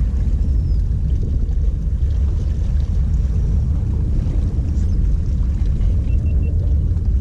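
Steady low rumble of wind buffeting the microphone, with waves washing against the jetty rocks.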